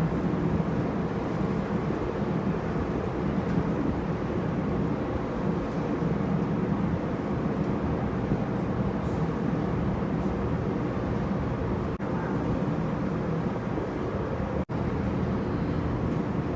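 Boat engine running steadily, a continuous low hum and rumble heard from aboard, broken by two brief gaps near the end.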